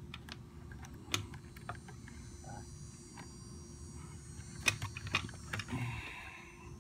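Scattered light clicks and rattles of wires and plastic connectors being handled on a hoverboard's logic board, the loudest about five seconds in, over a faint steady hum.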